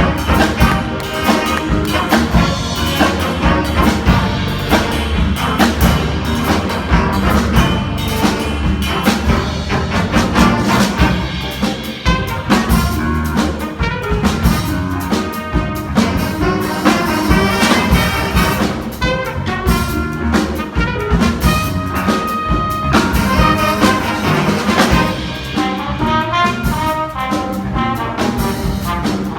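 Music with brass instruments and drums keeping a steady beat.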